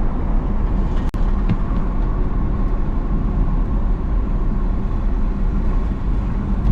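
Steady rumble of a moving road vehicle, engine and tyre noise, with one brief dropout about a second in.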